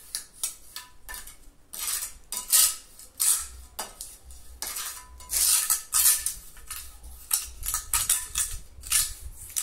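Steel mason's trowel scraping over wet cement and mortar on a floor, in quick uneven strokes about two a second. The trowel is working dusted-on dry cement into the wet surface to burnish it.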